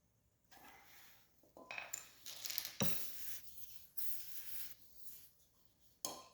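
Metal parts and hand tools clinking and scraping during hands-on disassembly work, with a few sharp metallic clicks, the loudest about three seconds in.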